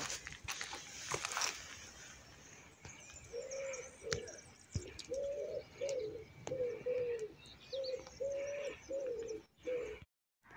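A pigeon cooing: a run of about ten short, low coos in little groups, starting about three seconds in, with faint chirps of small birds above. The sound cuts out abruptly near the end.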